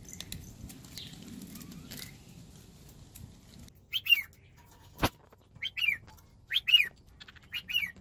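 Caged pet parrots chirping: a run of short, loud chirps that slide down in pitch, about one a second, starting about halfway through, with a single sharp click among them. Before the chirps, only faint rustling.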